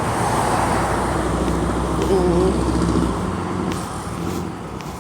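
Steady rumble of road traffic, with a low vehicle hum that drops away about three seconds in.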